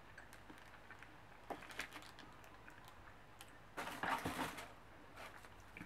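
Rustling and light clicking of packaging being handled while rummaging through a box of snacks, with a louder burst of rustling about four seconds in.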